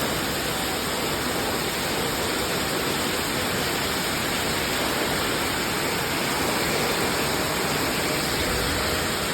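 Rain pouring steadily in a windy storm, an even, unbroken hiss.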